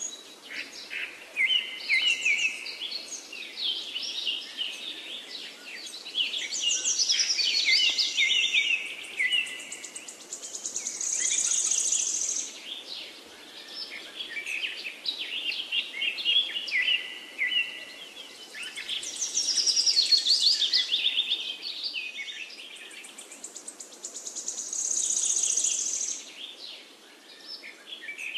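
Chirping, twittering bird calls in dense clusters that swell and fade every few seconds, over a steady background hiss.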